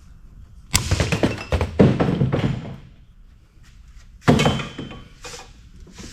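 Two heavy thunks of scrap fan parts being knocked about, each followed by a second or so of clattering and rattling. The second thunk, just after four seconds, carries a brief metallic ring, and a lighter knock follows it.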